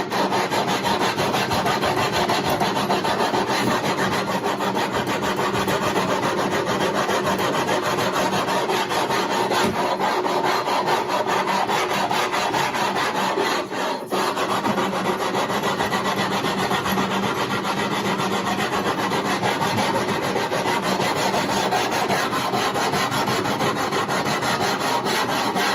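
80-grit sandpaper on a radiused aluminum neck sanding block rubbing rapidly back and forth along a wooden guitar neck, a steady scratchy rasping with a brief pause about halfway through. It is the final shaping stage, sanding out the dips and tool marks left by a rasp.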